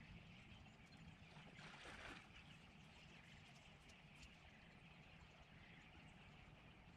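Near silence: the faint, steady flow of a river, swelling slightly about two seconds in.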